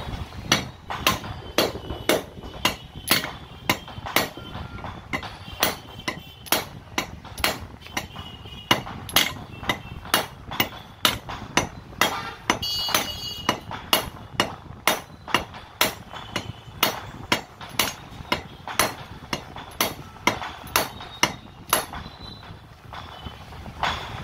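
A hand hammer strikes the metal barrel housing of a dismantled 5 kg demolition hammer, working it apart. The metallic blows come in a steady rhythm of about two a second, with a brief burst of ringing midway, and stop shortly before the end.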